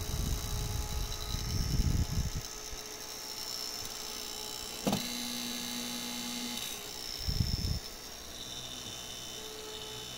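Brushless DC cooling fan running with a steady high whine and a rush of air. Its airflow buffets the microphone with a low rumble during the first two seconds and again briefly about seven and a half seconds in. A click about five seconds in is followed by a low hum that lasts under two seconds.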